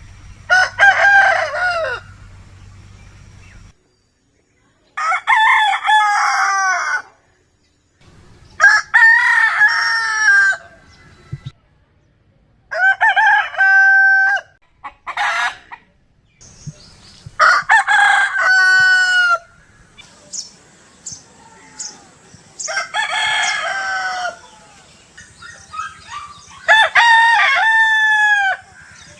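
Roosters crowing, one cock-a-doodle-doo after another: about seven crows, each lasting around two seconds, with a few shorter calls between them.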